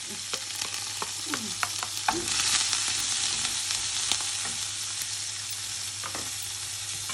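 Onion frying in hot oil in a pan, with a steady sizzle and the scattered clicks of a spoon stirring against the pan. The sizzle swells a little from about two seconds in.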